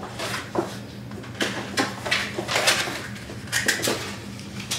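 Packaging being handled: rustling plastic wrap and light knocks of foam case lids and accessory packets, in irregular short bursts.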